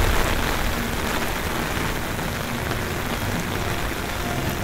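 Heavy hurricane rain falling in a steady hiss, with wind rumbling on the microphone.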